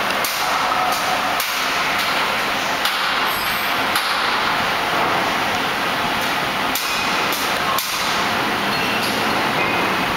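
Delta DF-20B spring-forming machine running steadily while coiling wire into battery springs, its tool slides clacking at irregular intervals over a constant mechanical whir.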